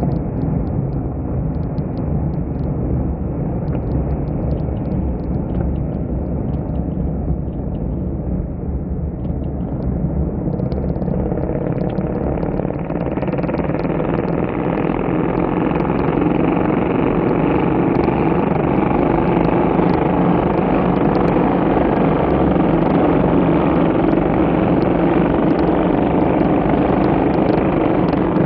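A pack of Moto3-class racing motorcycles running past together, their engines blending into one continuous drone that gets louder about halfway through as the bikes come closer.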